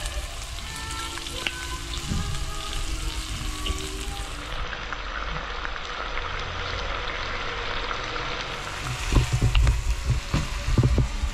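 Red pepper and onion sizzling as they fry in oil in a stainless steel pan, a steady hiss. Near the end come a few dull knocks, as of the pan being handled on the hob.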